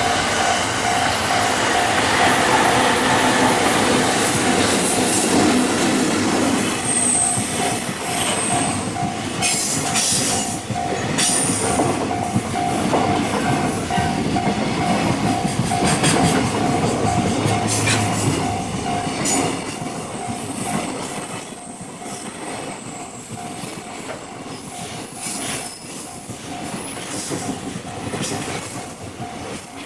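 EF65 electric locomotive hauling a container freight train past at close range, followed by a long string of container wagons rolling by. Wheels clack over rail joints, with a steady tone over the rumble for roughly the first twenty seconds.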